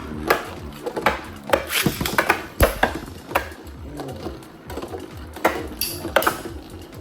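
Metal-wheeled Zero-G Beyblade spinning tops clashing in a plastic stadium: a string of sharp, irregular clacks as the tops collide.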